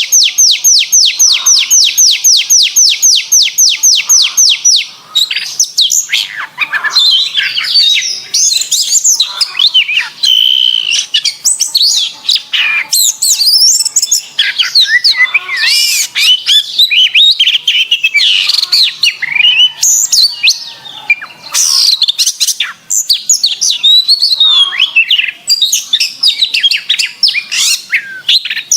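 Domestic canary singing: a rapid, even trill of identical repeated notes for about the first five seconds, then a fast, varied warbling song of rising and falling phrases.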